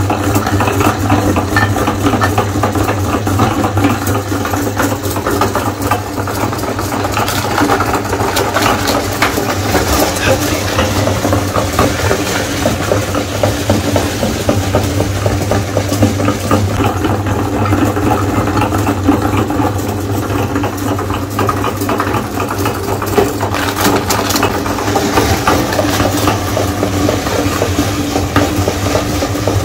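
Meat grinder running with a steady motor hum, crunching and crackling as it grinds Oreo cookies through its plate into crumbs.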